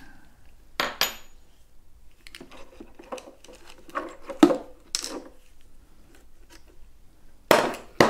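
Scattered metallic clicks and clinks from a screwdriver working the set screws of an electric unicycle's pedal as the pedal is worked off its rod. A louder clatter near the end as a tool or part is set down on the bench.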